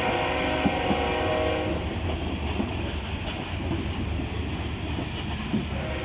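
Freight train's covered hopper cars rolling past, with a steady rumble and occasional wheel clacks over rail joints. A sustained multi-tone sound rides over it for the first couple of seconds, stops, and returns near the end.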